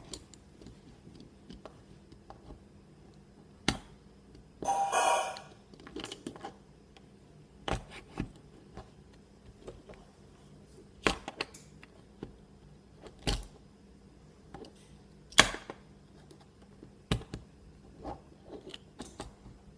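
Sharp plastic clicks and knocks, scattered a second or two apart, from a plastic fidget cube being handled and pried at to get it open. The loudest click comes about fifteen seconds in.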